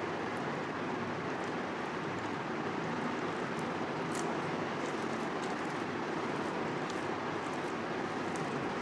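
Steady, even rushing background noise, with a few faint short ticks.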